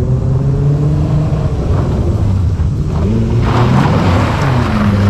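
Car engine running steadily with small shifts in pitch, with a rush of noise about three and a half seconds in.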